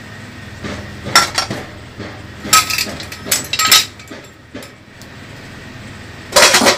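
Kitchen utensils and dishes clinking and knocking against each other: a few sharp clinks about a second in, a cluster of clinks between two and a half and four seconds, and a louder clatter near the end.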